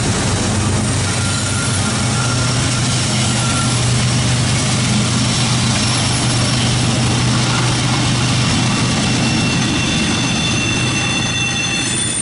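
Union Pacific diesel locomotives passing close, with a steady low engine drone over the rumble of the train, then double-stack intermodal cars rolling by. Near the end, high thin wheel squeal begins.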